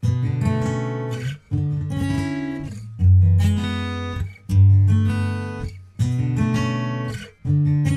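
Background music of strummed acoustic guitar chords that start abruptly. They come in phrases of about a second and a half, each followed by a short break.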